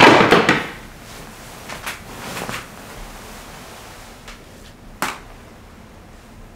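Bedclothes rustling and a bed shifting as a man thrashes and then crawls about on it, loudest in a burst at the start. A few light clicks follow, then a single sharp knock about five seconds in.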